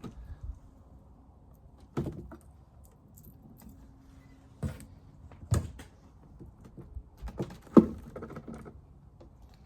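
Wooden beehive frames and parts knocking and scraping against the hive box as the hive is taken apart: a few separate sharp knocks, the loudest near the end.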